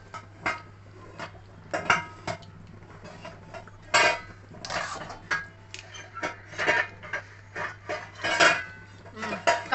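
Metal kitchenware clinking and knocking around a metal kadai: a dozen or so scattered sharp clinks at uneven intervals, the louder ones about two seconds in, about four seconds in and near eight and a half seconds. A steady low hum runs underneath.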